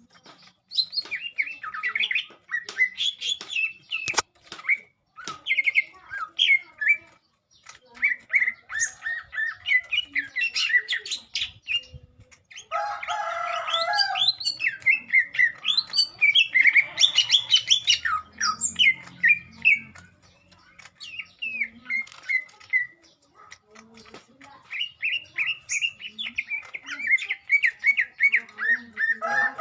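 Green leafbird (cucak ijo) singing a fast, varied chattering song of quick chirps and trills, broken by harsh squawking passages, in bursts separated by short pauses.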